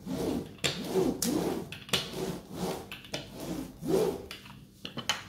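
Diamond painting roller rolled back and forth over a finished canvas of round drills, a run of rubbing, rasping strokes about two a second, pressing the drills flat before the canvas is glued.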